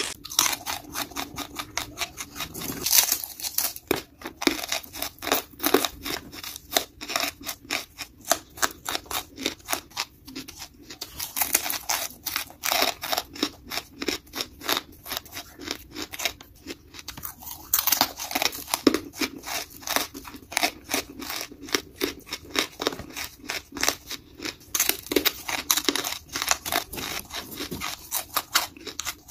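Lumps of charcoal being bitten and chewed close to the microphone: a rapid, continuous run of sharp, brittle crunches, with a couple of brief pauses.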